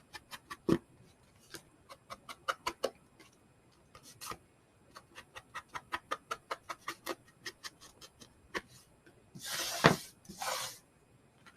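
Ink pad dabbed along the edges of a paper journaling card: a run of quick light taps, a few a second, then two longer rubbing swipes about ten seconds in.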